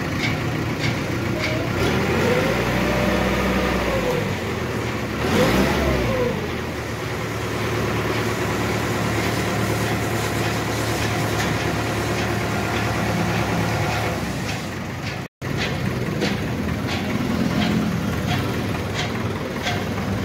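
Truck engine powering a truck-mounted hydraulic crane, running steadily and revved up and back down twice in the first six seconds or so while the crane lifts a heavy engine on its chain, with light clicks throughout.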